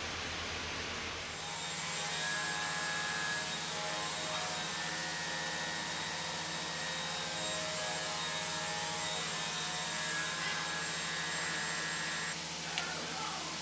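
A steady hum with several held tones over an even hiss, and a single short click near the end.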